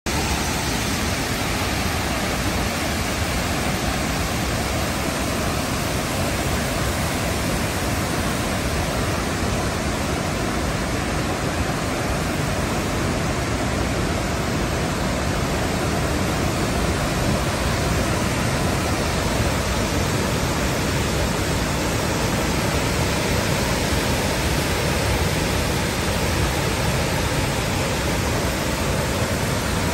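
The Great Falls of the Passaic River, a wide river waterfall, giving a steady, loud rush of falling water heard at close range.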